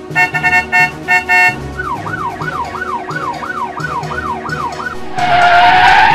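Emergency-vehicle siren sound effect: a few short electronic beeps, then a fast yelping wail that rises and falls about three times a second. Near the end comes a louder noisy burst with a held tone, all over background music with a steady beat.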